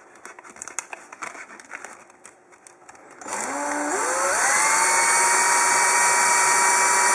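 Cordless drill starting about three seconds in, its whine rising in steps to a steady high speed as it spins a plastic arrow nock against sandpaper pinched around it by hand. Before that, light clicks and rustling as the sandpaper and nock are handled.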